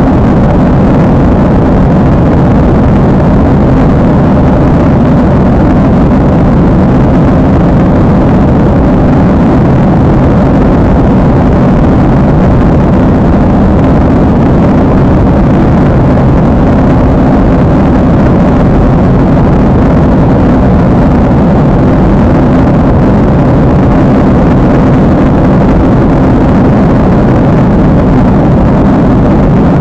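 Steady, loud roar of jet engines and airflow heard inside an airliner cabin in flight, unchanging throughout.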